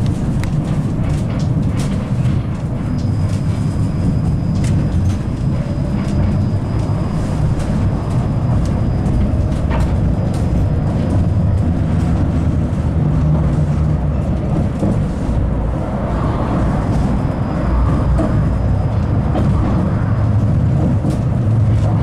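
71-931M Vityaz-Moskva tram running along the rails, heard from inside the car: a steady low rumble of wheels on rail with scattered clicks, and a thin high whine that comes in a few seconds in, drops out, and returns for a few seconds later on.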